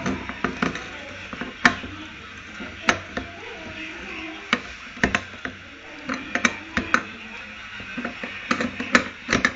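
Irregular sharp clicks and knocks of metal parts and tools being handled while a washing-machine gearbox is taken apart, about a dozen unevenly spaced strikes.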